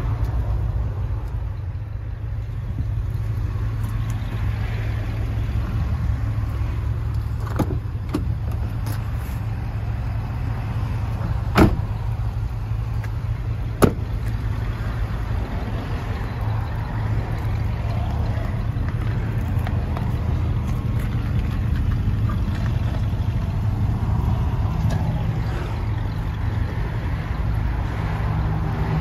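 2013 Ford Super Duty pickup's engine idling with a steady low rumble, with two sharp knocks about two seconds apart near the middle.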